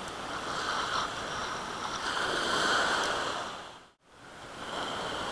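Small waves washing over shoreline rocks, swelling about two seconds in. The sound cuts out briefly about four seconds in, then the surf resumes.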